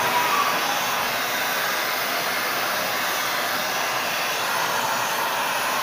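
Gas welding torch flame, a loud steady hissing rush, as a joint in a steel heating pipe is welded.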